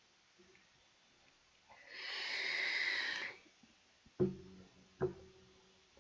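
A long breath blown out into a close microphone, lasting about a second and a half, then two short knocks about a second apart near the end.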